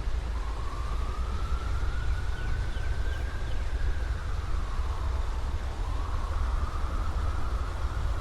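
A siren wailing, its pitch rising and falling slowly over several seconds, over a steady low rumble.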